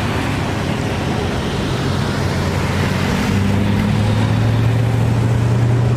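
A vehicle engine running steadily, its pitch stepping up slightly about three seconds in, over a steady noisy hiss.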